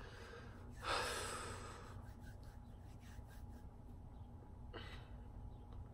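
A man lets out one heavy sigh about a second in, trailing off over about a second, with a faint short breath near the end; otherwise a quiet room with a low steady hum.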